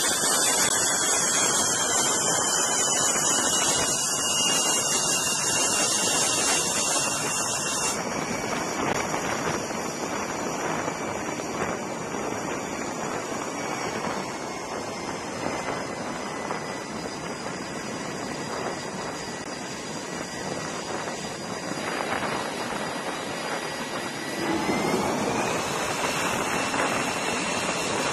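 Jet engines on a carrier flight deck running with a steady rushing noise and a high whine. Near the end the whine rises in pitch and grows louder as an engine spools up.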